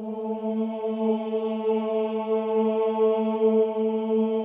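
Background music opening on a steady held drone, a single sustained note with its overtones that does not change pitch.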